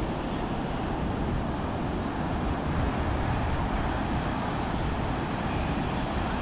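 Ocean surf breaking and washing up a sandy beach, a steady rush, with wind buffeting the microphone.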